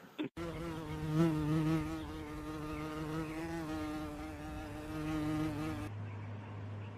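A flying insect buzzing, a steady, slightly wavering buzz that lasts about five seconds and cuts off abruptly near the end, where a low steady hum takes over.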